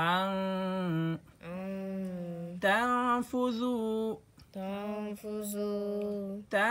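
A single voice reciting Quranic Arabic in a slow, drawn-out chant, holding each syllable long and steady in about four phrases separated by short breaths.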